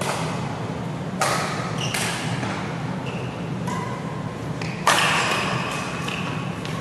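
Doubles badminton rally in an echoing hall: rackets striking the shuttlecock with sharp cracks, several times, the loudest hit about five seconds in, with short squeaks of shoes on the court mat between the shots.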